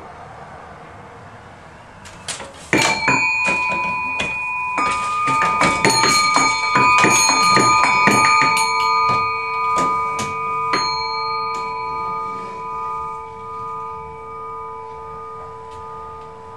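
Bells struck as live music, a flurry of quick strikes beginning about three seconds in. Several ringing tones pile up and hold. After the last strikes, near eleven seconds, the tones fade slowly and waver, with a lower tone lasting longest.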